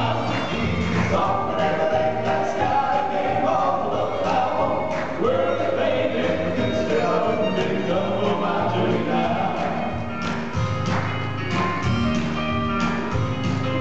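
Male southern gospel quartet singing in close harmony over a live band with bass and drums.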